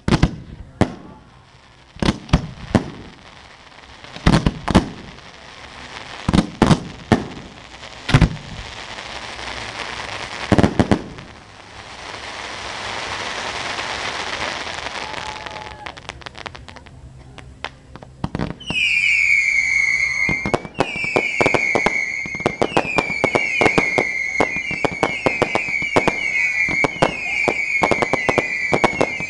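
Fireworks display: a series of sharp bangs, then a long crackling hiss, then a dense run of rapid cracks with short falling whistles repeating about once a second.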